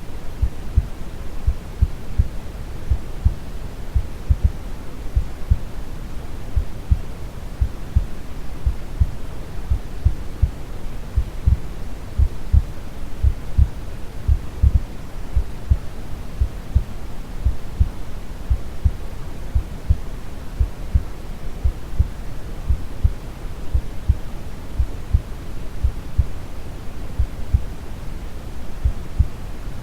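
Steady brown noise, a deep rushing hiss, with a calm heartbeat thumping slowly and evenly under it.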